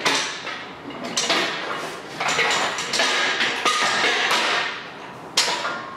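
Steel engine stand clanking as it is slid off the engine's rear mounting plate and pulled free: a string of sharp metal knocks with ringing, about one a second.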